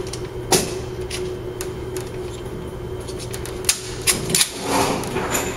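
Metallic clicks and clacks from an M1 Garand rifle's action being handled and readied: one sharp knock about half a second in, then a quick cluster of clicks near four seconds. A steady low hum runs underneath.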